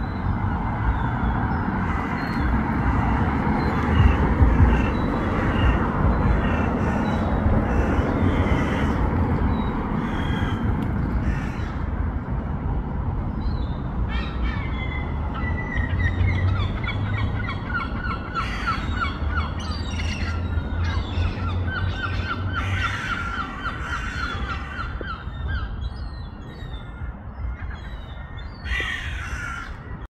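Harsh bird calls in quick repeated runs, with the loudest runs in the second half, over a steady rumble of street traffic.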